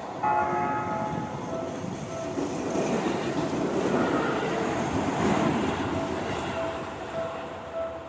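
A Seibu Ikebukuro Line electric train passes over a level crossing, its wheels running and clattering on the rails and the noise swelling in the middle of the passage. The crossing's warning bell keeps ringing in a steady repeating rhythm underneath.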